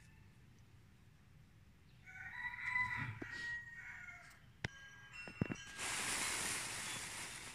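A rooster crows once, starting about two seconds in and lasting about two seconds. A few sharp clicks follow, then a loud burst of hiss lasting nearly two seconds.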